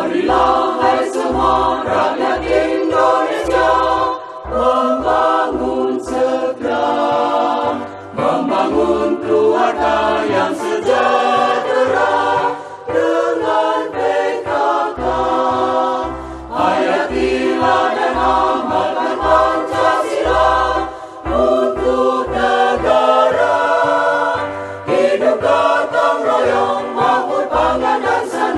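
Background music: a vocal song, voices singing together over a steady bass beat.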